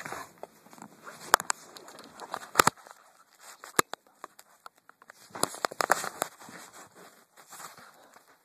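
A puppy scuffling and scrabbling on a rug during rough play, with scattered sharp clicks and knocks and a busier flurry of scuffling about five seconds in.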